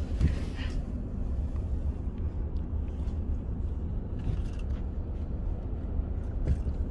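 Steady low rumble of a car driving on the highway, heard from inside the cabin: road and engine noise.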